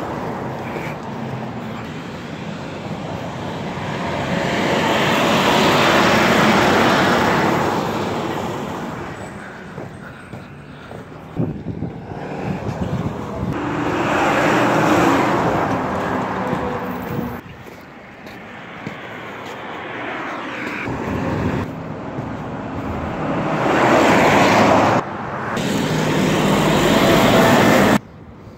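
Road traffic going past close by: three vehicles pass in turn, each swelling and fading over a few seconds, starting with a tractor-trailer. The sound cuts off suddenly near the end.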